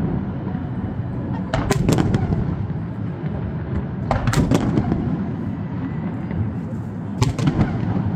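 Aerial fireworks going off: three clusters of sharp bangs and crackles, about two, four and seven seconds in, over a continuous low rumble.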